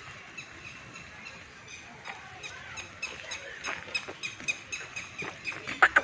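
Small birds chirping all around, with many short high notes repeating through the whole stretch. Two louder, sharp sounds come near the end.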